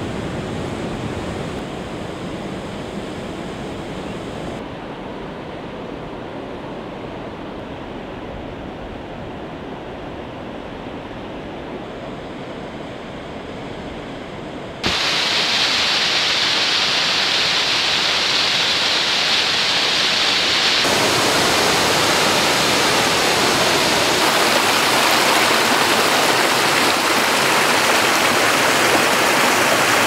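Waterfall water rushing over granite rocks as a steady hiss of falling and splashing water. About halfway through it abruptly becomes louder and brighter as a close cascade is heard.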